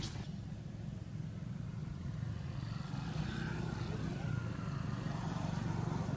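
A steady, low engine rumble, like a motor vehicle running.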